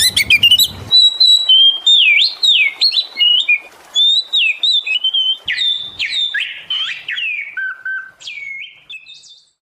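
Oriental magpie-robin (kacer) in full song: a loud, varied string of clear whistled notes and quick rising and falling glides. The song fades and stops near the end.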